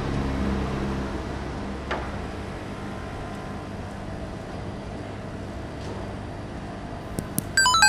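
Steady low background rumble with a couple of soft clicks. Just before the end a quick run of bright electronic beeps begins.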